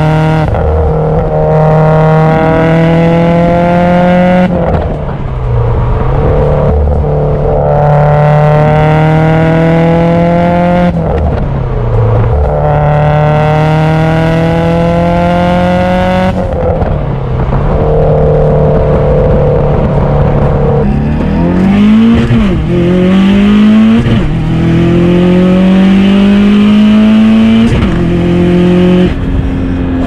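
Turbocharged Subaru STI flat-four with a rotated turbo kit and Cobb cat-back exhaust, pulling hard through the gears: loud, the revs climb steadily for several seconds, then drop briefly at each gear change, about six pulls in a row, the last few shorter.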